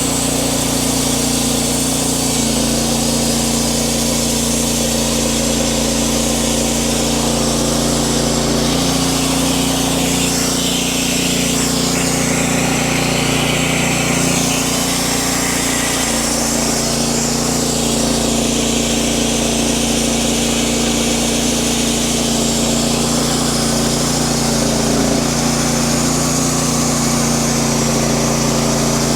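Wood-Mizer LX50 Super portable band sawmill running, its engine holding a steady note that shifts pitch a few times (about two, nine and sixteen seconds in) as the band blade cuts through a log.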